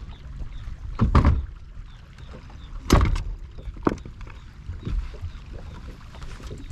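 A few hollow knocks and thumps on a bass boat's deck as a person handles gear at the bow, the loudest about a second in and about three seconds in. Under them is a low steady rumble.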